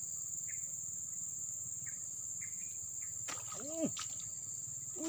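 Steady high-pitched buzz of crickets, with a few faint short chirps. About three and a half seconds in, a hooked fish splashes at the water's surface as the pole lifts it, together with a short vocal exclamation.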